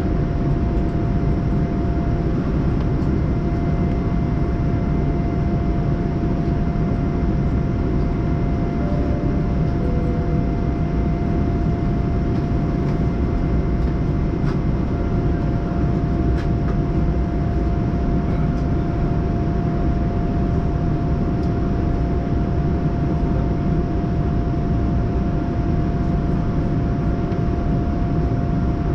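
Steady in-flight cabin noise of a Boeing 787-9 airliner: an even, low rumble of engines and airflow with a faint constant whine over it.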